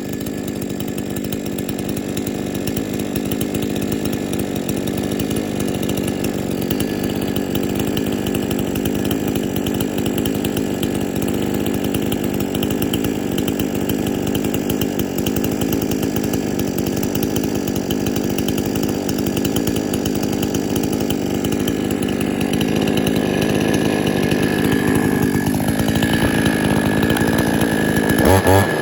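XtremepowerUS 62cc two-stroke chainsaw idling steadily, with a brief louder thump just before the end.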